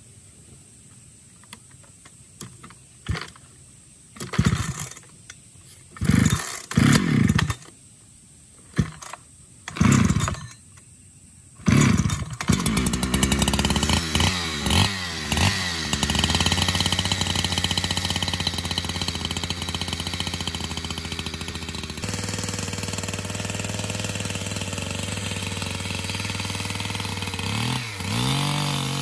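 Small petrol engine being cranked over several times without catching, then starting about twelve seconds in. It is revved briefly, then settles into running steadily, its note dropping slightly about ten seconds later.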